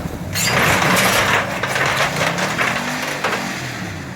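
Vehicle engine pulling hard on the shed, its pitch rising and falling. From about half a second in there is a loud rushing, cracking noise with several sharp knocks.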